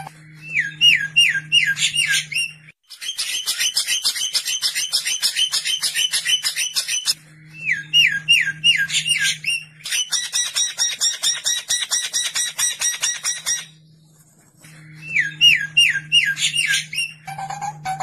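Songbird song in repeating phrases: a run of about six quick slurred whistles, then a long, fast, harsh chatter. The whistle run comes three times and the chatter twice between them, over a faint steady low hum.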